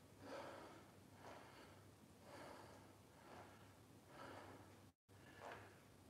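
Faint breathing of a man doing calf raises, soft puffs about once a second in time with the repetitions. The sound cuts out completely for a moment about five seconds in.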